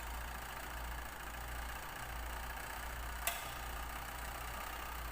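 Washing machine wash motor running with a steady low hum, powered through its timer, which the owner suspects is defective because the motor will not reverse. A single sharp click about three seconds in.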